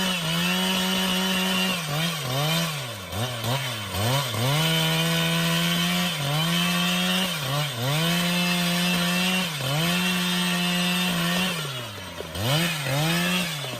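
Chainsaw running at high speed through wood. Its engine pitch sags and recovers several times as the cut loads it, with a longer sag near the end.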